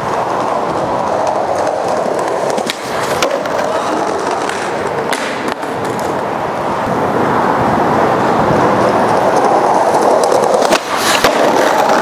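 Skateboard wheels rolling over rough asphalt and concrete, a steady gritty rolling noise that grows louder in the second half as the board comes closer. A few sharp clicks break through it, the last ones near the end.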